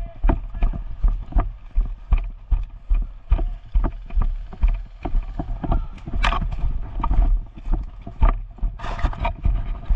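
Footsteps of a person moving quickly on foot, about two a second, each step thumping heavily on a body-worn camera's microphone. There are brighter rustling bursts about six and nine seconds in.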